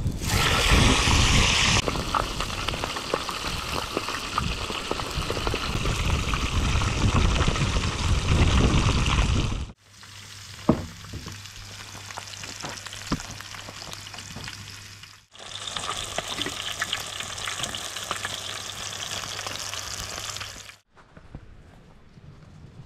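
Pieces of food dropped into hot oil in a wide disc pan over a wood fire, sizzling loudly as they go in, then frying with a steady hiss. After a cut the frying is quieter, under a low hum with a few light clicks, then the hiss comes back. It stops near the end.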